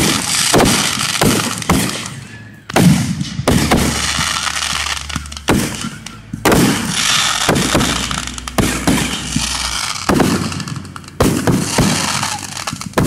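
Aerial fireworks shells going off in a display: a dozen or so loud bangs at uneven intervals, with crackling between them.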